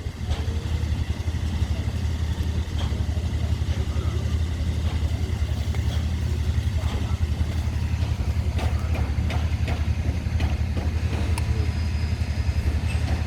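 A combustion engine running steadily at idle: a low, even hum that doesn't change, with faint voices in the background.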